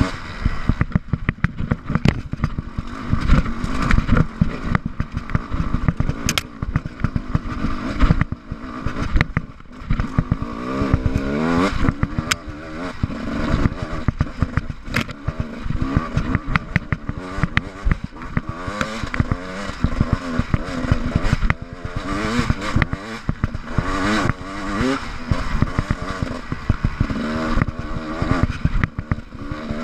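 GasGas EC 300 two-stroke enduro motorcycle engine revving up and down as it rides over rough, rocky ground, with frequent knocks and clatter from the bike.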